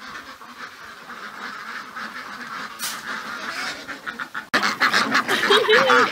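A large flock of white domestic ducks quacking in a continuous, busy chorus that grows louder. About four and a half seconds in, it cuts abruptly to much louder, close-up quacking from ducks crowding all around.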